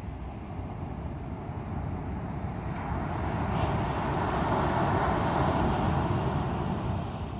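Sea waves on a shore: steady surf noise, with one larger wave building about three seconds in, washing loudest through the middle and easing off near the end.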